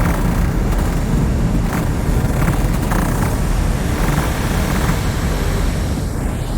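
Dark ambient sound-design drone: a deep, dense rumble under a noisy hiss, with soft swells of mid-range noise coming back every half second to a second. The texture thins slightly near the end.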